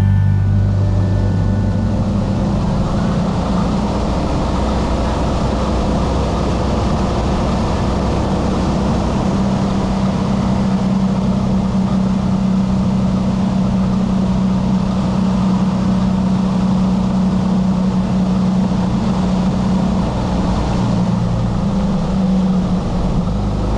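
Motorcycle engine running at a steady cruise, heard from the handlebars with a constant rush of wind and road noise. The engine note shifts briefly a little before the end.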